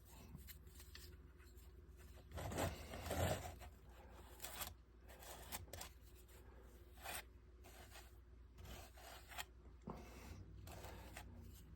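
Plastic spatula spreading wood filler over a wooden hull: faint, irregular scraping and rubbing strokes, a little louder about three seconds in.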